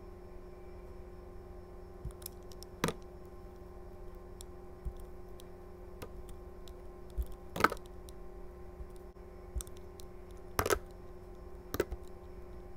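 Utility knife blade cutting slivers from a translucent soap bar: a few sharp clicks and cracks as the blade bites and pieces break away, the loudest about halfway through, with softer ticks between. A faint steady hum runs underneath.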